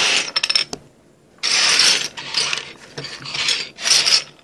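Metal crown bottle caps rattling and clinking against each other and the desk as a hand spreads the pile out, in rough bursts with a short pause about a second in.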